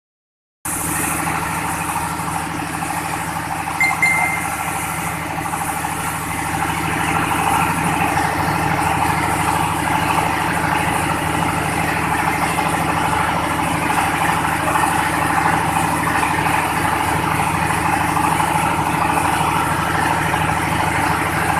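Coconut coir sifting machine, a rotary drum sieve, running with a steady motor hum. A brief high squeak about four seconds in, and the running sound grows a little louder after about seven seconds.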